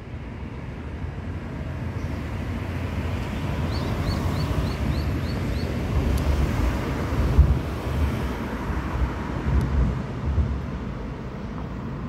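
Outdoor background noise with a low rumble that builds and turns uneven and gusty in the second half. A quick run of about seven short high chirps comes a few seconds in.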